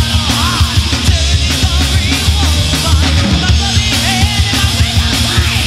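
Hard rock band's demo recording: a drum kit and bass keep a steady beat under electric guitar, with a melodic line bending up and down in pitch.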